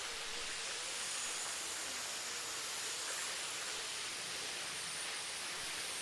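Steady hiss of a small waterfall spilling over a rock ledge.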